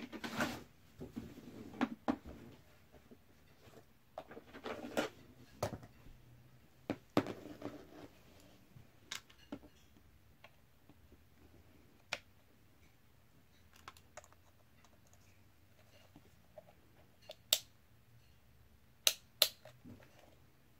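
Handling noise from a digital multimeter and its test leads: rustling in the first few seconds, then scattered sharp clicks, several of them close together near the end.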